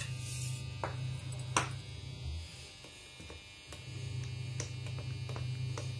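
A steady low electrical hum that drops out for a second or two in the middle, with a few sharp clinks of a steel spoon against a glass mug as sattu flour is spooned in. The loudest clink comes about one and a half seconds in.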